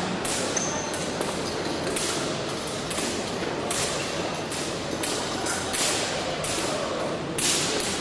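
Busy fencing hall: a steady murmur of voices with frequent sharp metallic clicks and thuds from bouts and footwork on the neighbouring pistes.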